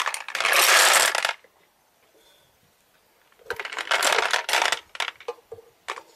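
Ceramic milling balls rattling inside a plastic ball-mill tank as it is tipped and set down, in two bursts about three seconds apart.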